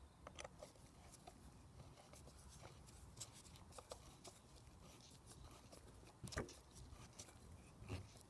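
Faint, scattered small clicks and scrapes of an Allen key turning a screw into a Renault Twizy brake caliper, with louder knocks about six and eight seconds in.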